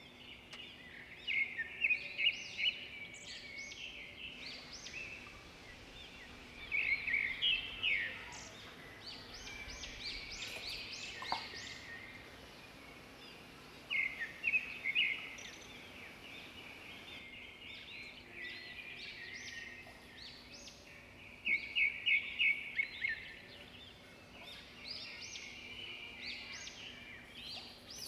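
Birds chirping in repeated bursts of quick, high notes, with pauses of a few seconds between bursts, over a faint steady hum.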